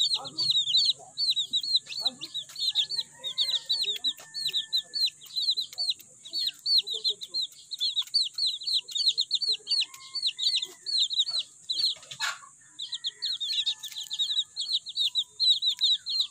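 Chicks of a brood peeping while feeding: a fast, nearly unbroken string of short high chirps, several a second, with one sharp tap about twelve seconds in.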